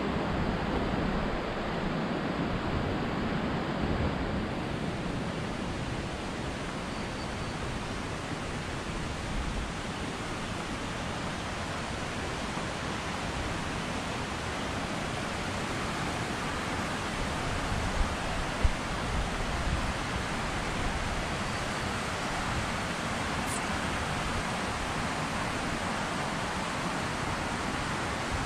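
A mountain creek rushing steadily, an even hiss of water. Two short knocks come about two-thirds of the way through.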